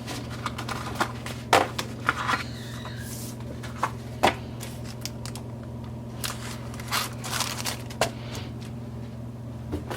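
Paper crafting supplies and their plastic packaging being handled: scattered rustles, crinkles and light taps, the sharpest about one and a half, four and eight seconds in, over a steady low hum.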